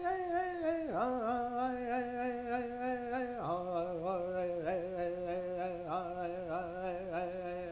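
Slow music of long held, wavering notes sounding together as chords, the chord shifting about a second in and again about three and a half seconds in.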